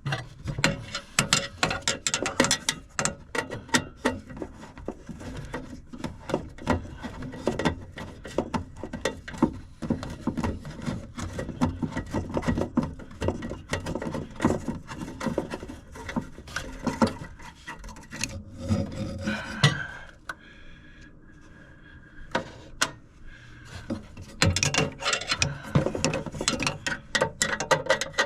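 Close-up handling noise of hands and tools working on furnace parts: many clicks, knocks, rubbing and scraping, with a quieter pause about two-thirds of the way through.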